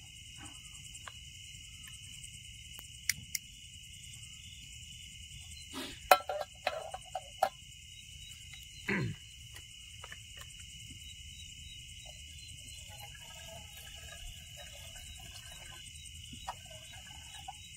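Steady night chorus of crickets and other insects, a continuous high trilling. A few sharp knocks and clicks cut through it, the loudest about six seconds in, and a short falling tone follows near nine seconds.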